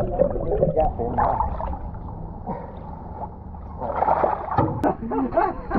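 Water gurgling and bubbling around an underwater camera as a hooked cod is hauled up to the surface. It gets louder about four seconds in, with muffled excited voices and a sharp click.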